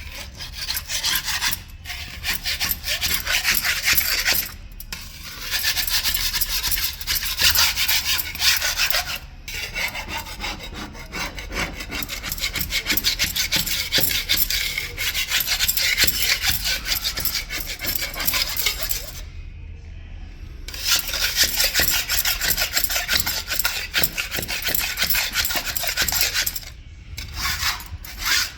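Marble stair surface being abraded by hand, a continuous harsh rasping rub in long stretches with a few short pauses.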